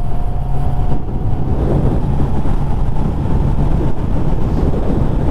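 Honda Hornet 600's inline-four engine running steadily at cruising speed, with road noise, heard from a camera mounted on the motorcycle.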